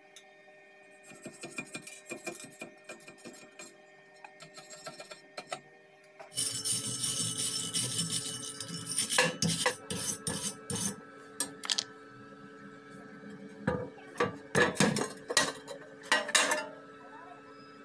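Steel wire brush scrubbing a fresh stick weld bead on thin square steel tube, a hard scraping that starts about a third of the way in, followed by a run of sharp metallic clinks and knocks as the welded tube is handled against the steel plate.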